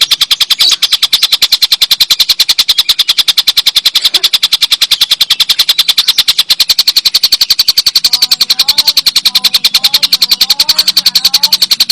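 Tengkek buto kingfisher giving its long laughing chatter (ngekek), an unbroken fast run of harsh notes at about ten a second. Faint chirps from another bird join in over the last few seconds.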